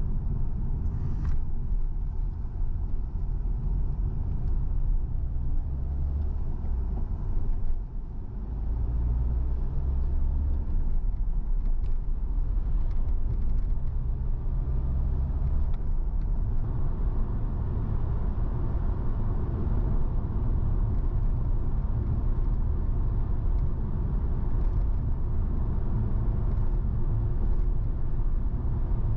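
Car driving along a road: steady low rumble of engine and tyres.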